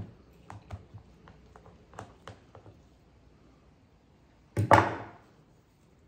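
Cutting snips digging into compost in a plastic seed tray: a string of small, light clicks and taps. About four and a half seconds in comes one louder clatter as the snips are set down on the wooden bench.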